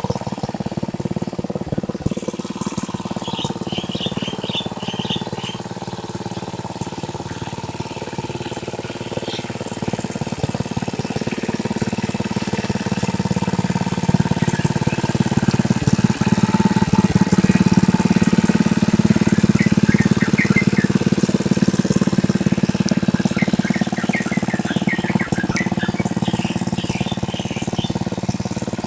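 Tractor engine running steadily while plowing a rice paddy, growing louder toward the middle and easing off again. Birds chirp over it a few seconds in and again near the end.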